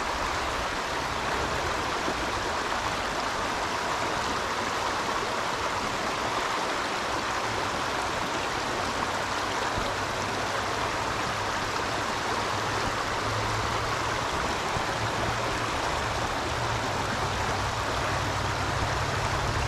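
Small stream running over a shallow riffle: a steady rush of water.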